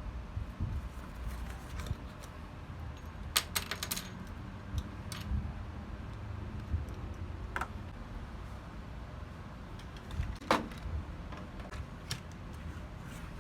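Scattered sharp clicks and clinks of small hard objects being handled, with a quick cluster of them about three and a half seconds in and single ones later, over a low rumble.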